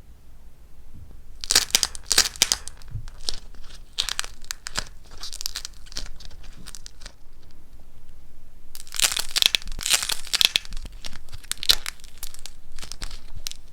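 Dried cracking clay being crushed and broken apart by hand, giving dense crackling crunches in three bursts. The longest and loudest burst comes in the last third.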